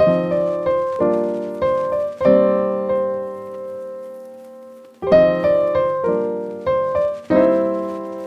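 Background piano music: chords struck and left to die away, one held and fading for about three seconds before the playing picks up again.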